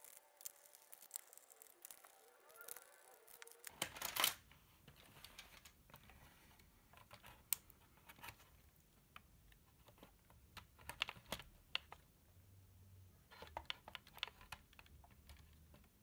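Faint plastic clicks and rattles of a toy RC car's body shell being unclipped and lifted off its chassis, with one louder clatter about four seconds in and small bunches of clicks later on.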